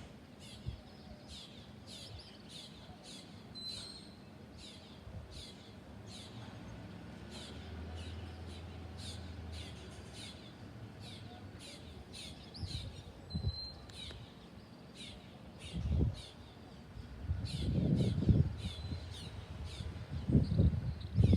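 Short, high, falling chirps repeating about twice a second. A faint low hum runs in the middle, and irregular low bumps come in the last few seconds.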